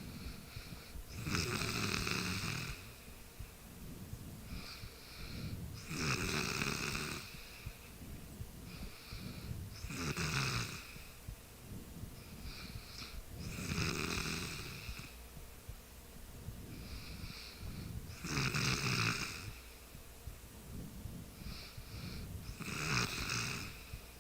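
A sleeping person snoring: six loud snores, about one every four seconds, with quieter breaths in between.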